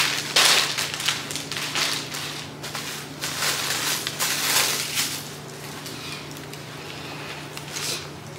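Plastic packaging crinkling and rustling as a dress is pulled from its bag and unwrapped. The crackling comes in irregular bursts, loudest about half a second in, and dies down after about five seconds.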